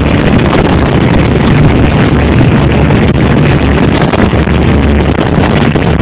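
Motorboats running at speed over choppy sea: a steady, loud rush of wind on the microphone, engine rumble and hull spray.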